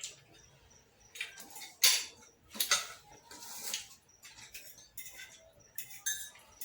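Spoon and cup clinking: a handful of irregular light clinks and taps of cutlery against crockery as sugar is spooned into coffee, the sharpest about two seconds in.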